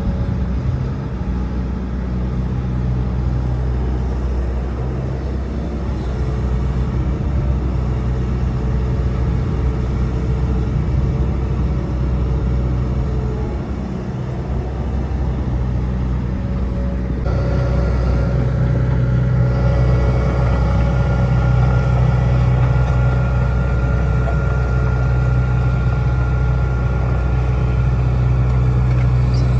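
Hitachi Zaxis excavator's diesel engine running steadily under work. About 17 seconds in it gets a little louder and a higher whine joins it, which holds to the end.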